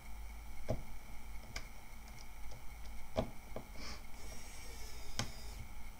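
Scattered light clicks and taps of small screws and a screwdriver being handled against a ThinkPad laptop's plastic screen bezel during reassembly, about five clicks at uneven intervals, with a faint brief hiss a little past the middle.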